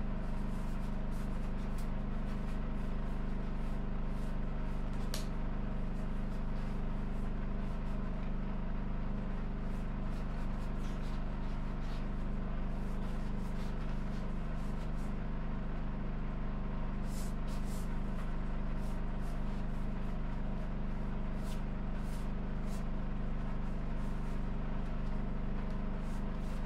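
Steady machine hum with several fixed pitches, unchanging throughout, with a few faint ticks now and then.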